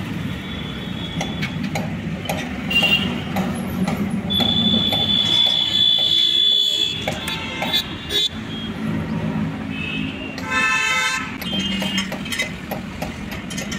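Diesel engine running with passing road traffic, a long high horn blast from about four seconds in to about seven, and a shorter horn honk about ten seconds in.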